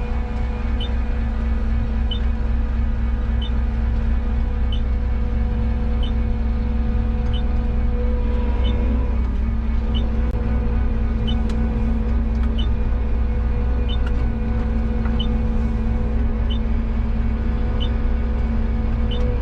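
New Holland TR89 combine harvester running steadily while harvesting oats: a constant low mechanical drone with steady humming tones. A short high chirp repeats about every 1.3 seconds.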